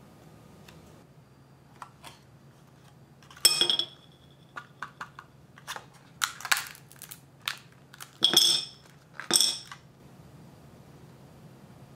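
Chocolate candies being popped out of a thin clear plastic mold and set down on a ceramic plate: scattered crinkly clicks and cracks of the plastic, and a few louder clinks on the plate with a brief ring.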